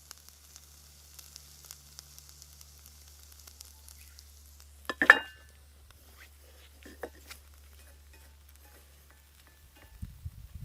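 Yakisoba sizzling faintly in a hot cast-iron skillet, the sizzle dying away after about three seconds. About halfway there is a single sharp clank with a brief ring, followed by a few light ticks.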